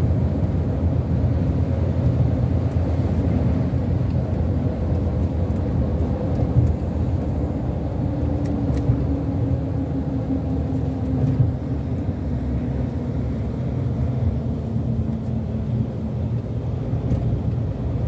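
Steady low rumble of tyre and engine noise heard inside a moving vehicle at road speed, with a faint steady hum and a couple of small knocks.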